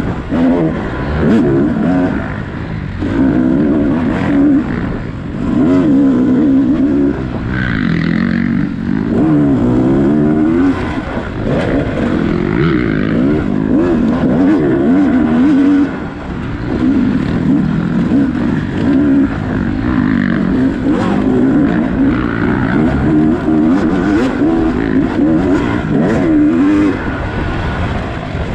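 Off-road dirt bike engine revving hard and falling back again and again as the rider works the throttle through a wooded trail, with brief throttle-off dips and scattered knocks and clatter from the bike over rough ground.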